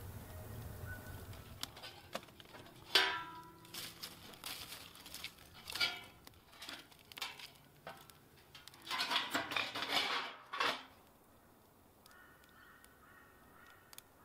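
Birds calling: one loud harsh call about three seconds in and a dense run of calls around nine to eleven seconds, with fainter calls near the end. Faint sharp pops from a wood fire burning in the kiln's firebox.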